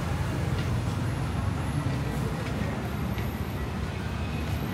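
Street traffic: a steady low rumble of passing vehicles, with a few faint clicks.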